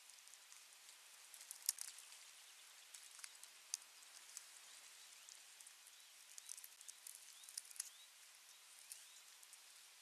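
Osprey tearing at a fish on its stick nest: faint scattered clicks and crackles from beak, fish and nest twigs. In the second half there is a run of faint short rising peeps, about one a second.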